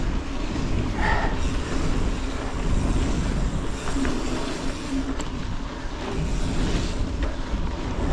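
Mountain bike rolling fast over a dirt forest singletrack: steady tyre rumble on the trail mixed with wind buffeting the action camera's microphone.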